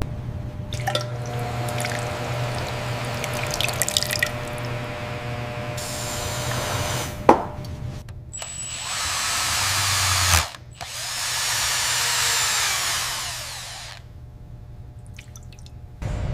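Handheld power tool, drill-like, run in several separate stretches while cleaning corrosion and marine growth from a metal model. There is a sharp click about seven seconds in, and a stretch that cuts off suddenly about ten and a half seconds in.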